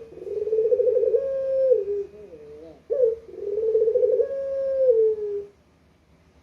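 Barbary dove (burung puter) cooing: two long rolling coos about three seconds apart, each ending in a falling, wavering note.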